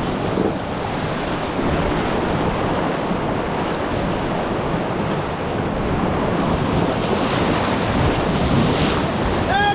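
Whitewater river rushing and splashing steadily around a paddle raft, with wind buffeting the microphone.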